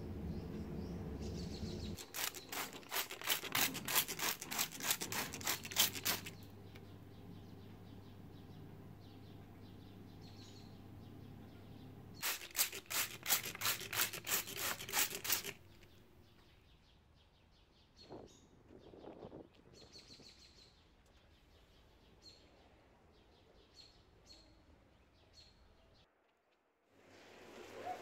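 Hand spray bottle misting houseplant leaves: two runs of quick, even squirts of spray hiss, about five a second. Faint bird chirps sound in the quieter second half.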